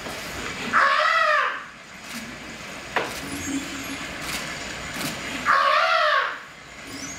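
A high, wailing vocal cry that rises and falls in pitch, heard twice: about a second in and again near the end. Between the two cries there is one sharp knock.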